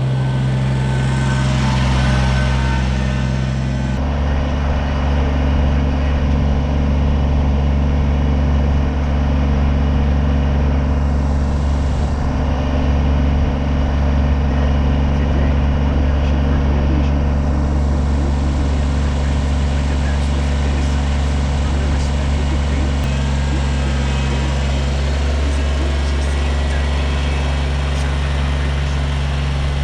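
Kubota BX23S sub-compact tractor's three-cylinder diesel engine running steadily, its note changing about four seconds in and again about three-quarters of the way through.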